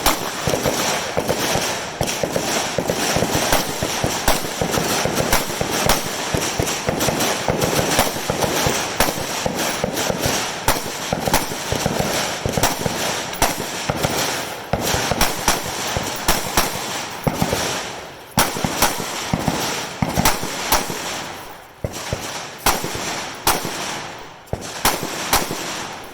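Many rifles firing along a shooting line: sharp shots come irregularly and often overlap, several a second, with a short lull about 21 and 25 seconds in.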